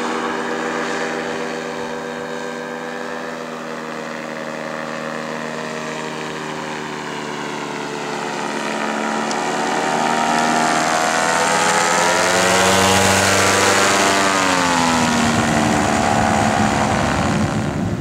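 Paramotor engine and propeller running steadily, growing louder as it flies low overhead, loudest a little past halfway, then falling in pitch as it passes and moves away.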